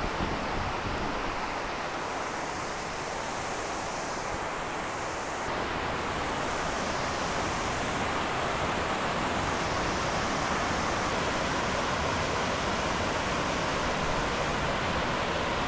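Steady rushing of water pouring down a wide stepped concrete dam spillway, an even wash of noise with no breaks.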